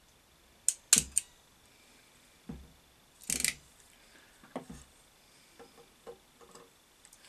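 Crimping pliers squeezing a new terminal onto a wire: three sharp clicks about a second in, a short louder rasp a few seconds later, then lighter clicks and ticks as the tool and wire are handled.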